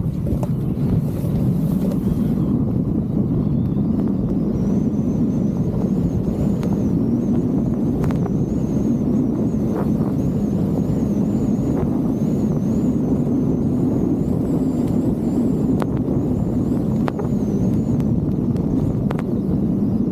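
Steady low rush of wind buffeting an action camera's microphone as the rider descends at speed, mixed with the hiss of sliding over snow. A faint thin whistle wavers above it for much of the time.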